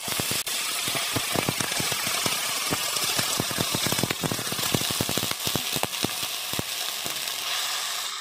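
Soaked sago pearls sizzling and crackling in hot ghee in a pan as they are stirred. The sizzle starts suddenly and eases off near the end.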